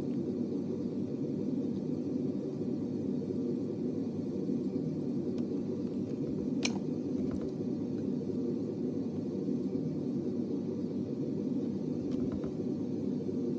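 Steady low rumble with no speech, with a single sharp click about halfway through.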